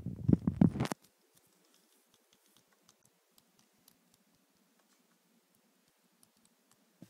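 Rumbling and knocking of a handheld microphone being moved, cutting off abruptly about a second in. Then near silence with faint, irregular tiny clicks and ticks, and one slightly louder click near the end.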